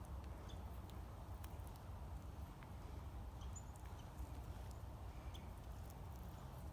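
Faint outdoor ambience: a steady low rumble with a few soft scattered ticks and faint short high chirps.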